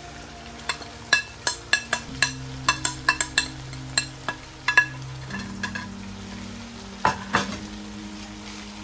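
A metal spoon taps and scrapes against a plate in quick ticks, knocking ground spices off into a pot of chicken frying in oil. Two louder knocks come about seven seconds in.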